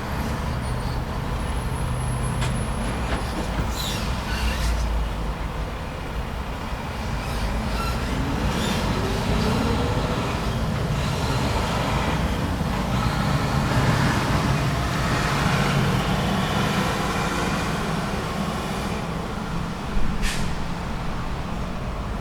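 Continuous road traffic: cars and heavy vehicles running, with one engine rising in pitch as it pulls away and a louder vehicle passing through the middle. A single sharp knock sounds near the end.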